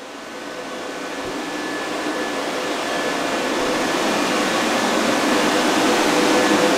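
Steady whirring machine noise with a faint hum in it, fading in and growing louder throughout.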